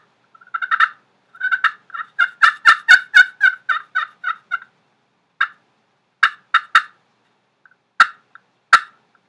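Knight and Hale Yella Hammer slate turkey call, its waterproof-tipped striker worked across the sandpaper-type calling surface, giving a run of turkey yelps at about four a second that builds and then tapers off. It is followed by a handful of single short, sharp notes like clucks.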